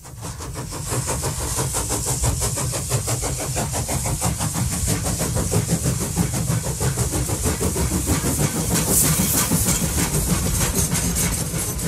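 A locomotive engine running with a rapid, even beat, fading in over the first second or so.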